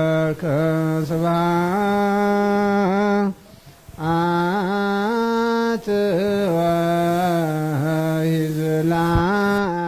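A man chanting an Ethiopian Orthodox liturgical prayer solo, slow and melismatic: long held notes ornamented with wavering turns, with a short pause for breath about three seconds in.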